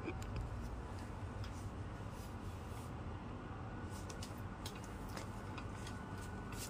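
Steady low background noise of a small room, with a few faint clicks and light rustles scattered through it.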